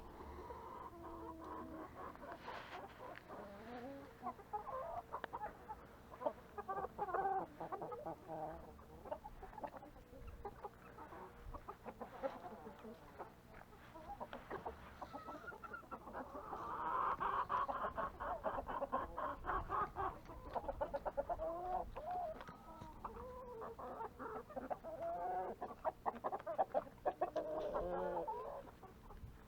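A flock of chickens clucking and calling, many short overlapping calls throughout, with a louder, busier stretch of calls about halfway through.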